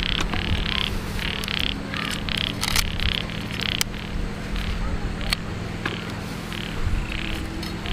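Quick, high pulsed animal calls, about three a second, growing fainter and sparser after about four seconds. Scattered sharp clicks come from a knife cutting the leafy tops off carrots.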